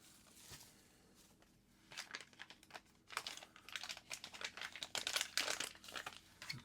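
Packaging crinkling and rustling as a folding knife is unwrapped from its box. It is quiet at first, then a quick, irregular run of crinkles starts about two seconds in and continues.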